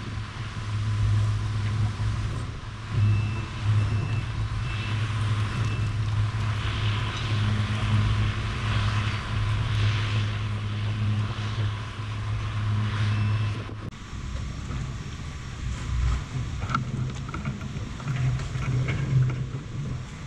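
A boat engine running steadily with a low hum, under wind noise and water. About two-thirds of the way through, the hum drops suddenly to a weaker, uneven drone.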